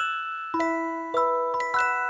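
Gentle background music of bell-like struck notes and chords, a new strike a little under twice a second, each left ringing into the next.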